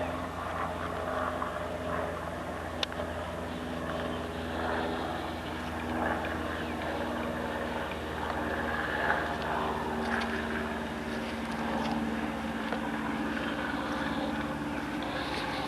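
A steady engine drone, its pitch drifting slowly, like a distant engine running.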